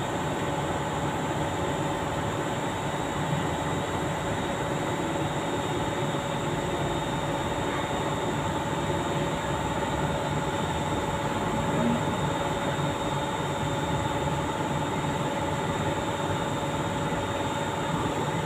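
Steady mechanical drone with several constant whining tones over an even rush of noise, as from a running machine.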